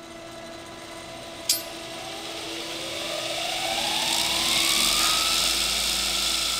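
Belt grinder running with a hardened san-mai Damascus steel sword blade ground against the belt; the grinding hiss builds and becomes loud from about halfway through. The grinder's whine rises in pitch over a few seconds, and a single sharp click sounds about a second and a half in.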